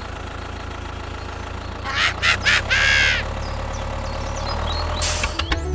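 A small motor running steadily with a low hum. About two seconds in, a few short squeaky, quack-like calls are heard, and a brief hiss comes near the end.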